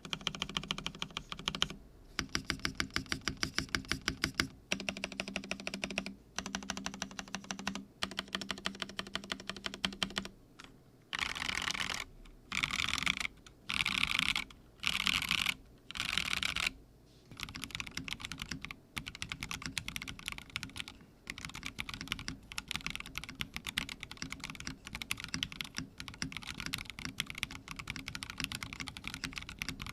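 Typing on a custom mechanical keyboard with a beige Theca Rubrehose TKL case, aluminium plate, linear switches and NicePBT PBT keycaps. It is fast, steady typing, with short pauses, and four brief bursts of very rapid key presses in the middle.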